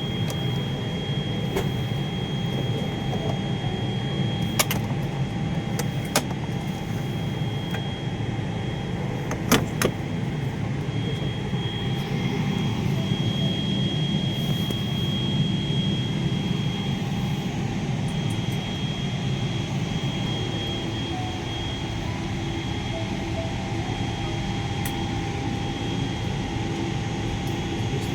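Airliner cabin noise: a steady low rushing hum of the air-conditioning and aircraft systems with a thin, high, steady whine, broken by a few light clicks.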